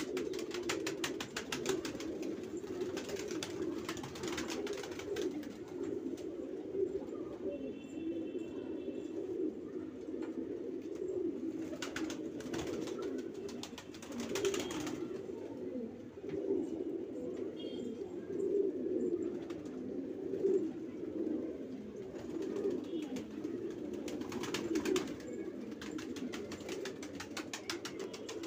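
Banarasi domestic pigeons cooing, several birds overlapping in a continuous low murmur of coos.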